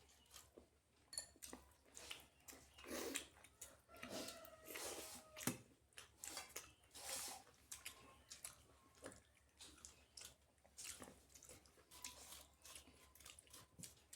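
Close-up chewing and mouth smacking of someone eating flatbread (roti and paratha) with dal and vegetable curry: a quiet run of short, wet clicks and smacks.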